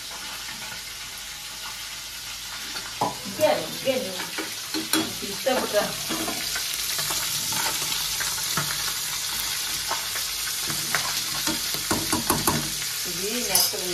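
Oil sizzling steadily in a steel kadai on a gas burner. From about three seconds in, a steel ladle scrapes and knocks against the pan as the frying food is stirred.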